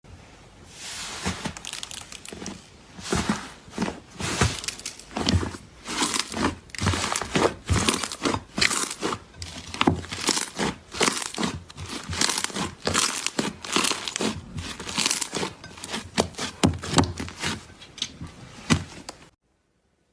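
Slime being squeezed and pressed by hand, giving a dense, irregular run of crackles and pops that stops suddenly near the end.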